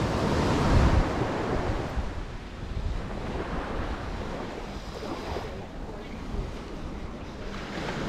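Waves breaking and washing on a sandy beach, one surge loudest about a second in, with wind buffeting the microphone.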